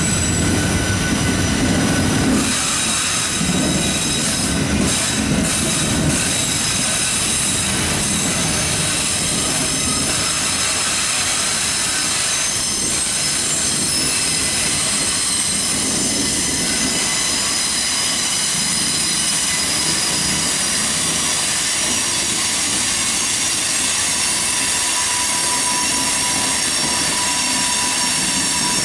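Norfolk Southern mixed freight train rolling past: the cars' steel wheels rumble on the rails with steady high-pitched wheel squeal. The low rumble is strongest in the first few seconds.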